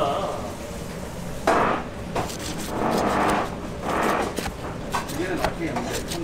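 Kitchen knife slicing through rolls of egg gimbap (nori wrapped around shredded egg instead of rice) onto a plastic cutting board: several slicing strokes, about a second apart, starting about a second and a half in.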